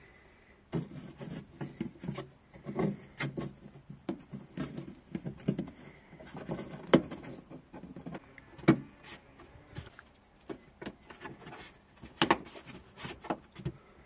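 Irregular clicks, knocks and rubbing from hands working at a car's fuel pump access hatch: the pump's plastic electrical connector being handled and the rubber hatch covers being pressed into place.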